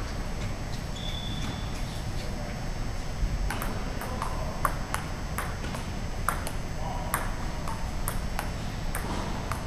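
Table tennis ball clicking off paddles and table in a rally, starting about three seconds in and going about twice a second.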